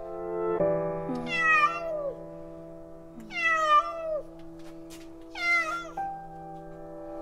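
Cat meowing three times, each meow falling in pitch, over background music of sustained chords.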